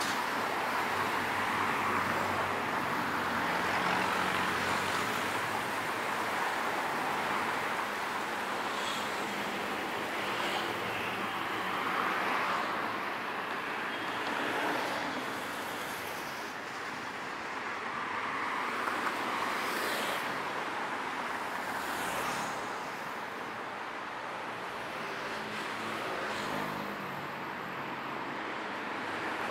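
Road traffic going past: a continuous wash of car tyres and engines that swells and fades as vehicles pass.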